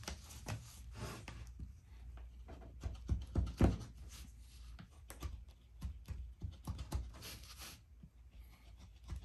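Wharncliffe folding knife blade slicing through a leather belt: an irregular run of faint scraping cuts and light knocks, the loudest strokes a little over three seconds in.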